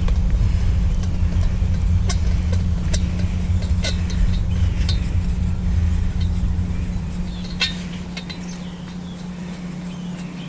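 A vehicle engine running as a steady low rumble, with scattered clinks and knocks on top; the rumble drops away about eight seconds in.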